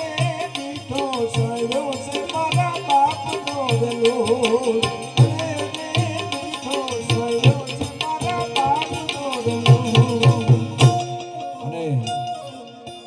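Instrumental close of a Gujarati devotional song: tabla playing under a wavering melody line. The tabla builds to a quick run of strokes and a final sharp stroke about eleven seconds in, after which one held note rings and the music fades out.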